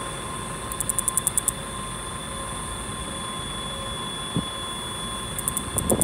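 Iwasaki's grass cicada (Mogannia minuta), Japan's smallest cicada, singing: a steady high buzz, broken twice by short runs of fast pulsing at about ten pulses a second.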